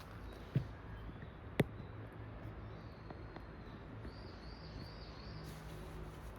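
A bird calling faintly with a short warbling run of high notes in the second half, over a steady low rumble. Two sharp knocks come in the first two seconds.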